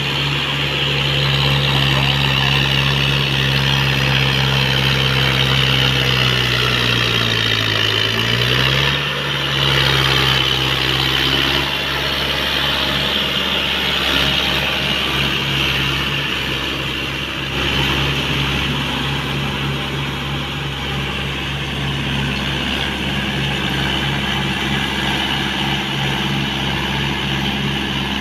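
Mahindra 475 DI tractor's four-cylinder diesel engine running steadily under load as it pulls a rotavator through a flooded paddy field, puddling it. About seven seconds in, the engine note sags as it labours, then picks up again a second or so later.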